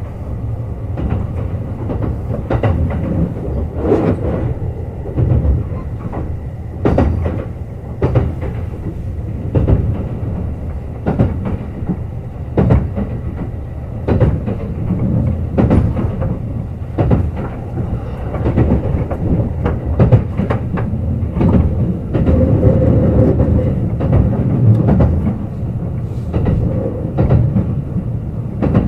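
Kintetsu Urban Liner Plus (21000 series) electric limited express running at speed: a steady low rumble with wheels clicking over rail joints about once a second, growing a little louder for a couple of seconds past the middle.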